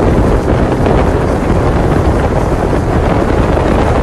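Steady, loud rush of wind buffeting a phone's microphone from a moving car, mixed with road noise from the wet street.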